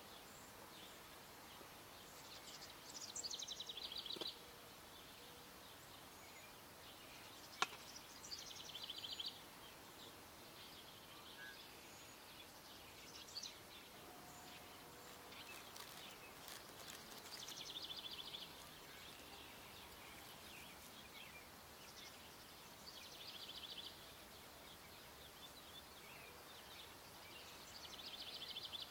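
A songbird singing short, high trilled phrases every few seconds over faint background hiss, with one sharp click about seven and a half seconds in.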